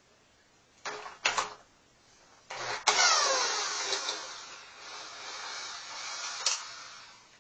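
Two short knocks as a handheld power driver is set on a 12 mm timing-cover bolt of a Nissan VQ30DE V6, then the driver whirs, starting abruptly about two and a half seconds in, easing off and picking up again before stopping near the end, as it runs the bolt out.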